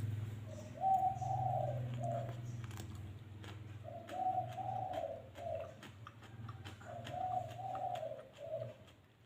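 A dove cooing: three phrases of several soft, rounded notes each, about two seconds long and repeated roughly every three seconds, over a steady low hum.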